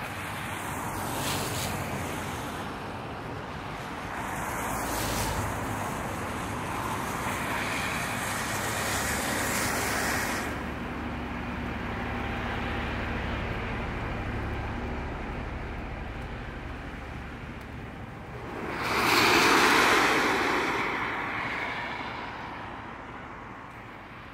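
Traffic swishing past on a wet road, tyres hissing on the water, under a steady rush with wind buffeting the microphone. One vehicle passes closer and louder about three quarters of the way through, swelling and fading over a couple of seconds.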